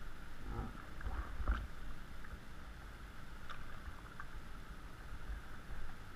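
Small unpowered boat moving slowly on calm water: water lapping and splashing at the hull, with a few short splashes or knocks, over a low rumble on the microphone.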